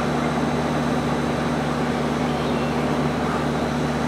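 A steady mechanical hum over even rushing noise, like a motor or fan running without change.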